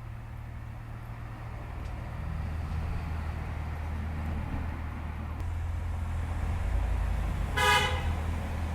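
Steady low traffic rumble, with one short car-horn toot near the end.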